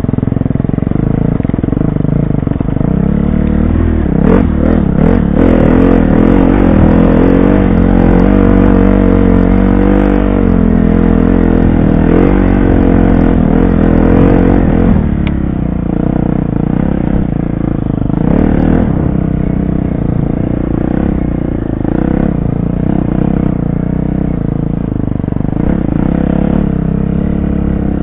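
Dirt bike engine running hard under the rider, its pitch rising and falling with the throttle, with clattering from the trail. From about 4 to 15 seconds in it is louder and fuller as a second dirt bike rides close alongside.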